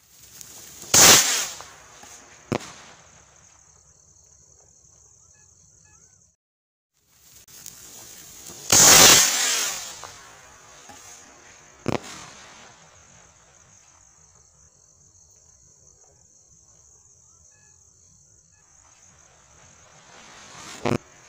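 Firework sky rocket with an anar fountain tied on top: a loud hissing whoosh of about a second as it fires, twice (about a second in and again about nine seconds in), each followed a moment later by a single sharp crack. A faint steady high-pitched chirring runs beneath.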